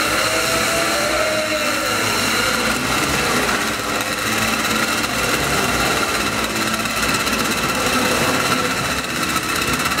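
Old Puch motorcycle engine running steadily as it circles the wooden Wall of Death, a continuous buzzing drone without breaks.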